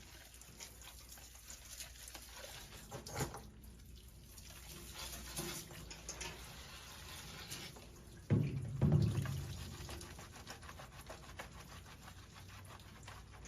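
Wet scrubbing and splashing as a dog's shampooed coat is worked by hand during a bath. A louder, deeper splash-like burst comes about eight seconds in.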